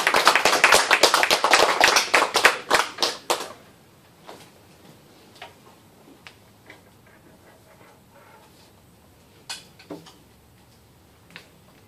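A small group clapping, fading out about three and a half seconds in. After that, a few faint clicks and rustles of papers and a folder being handled.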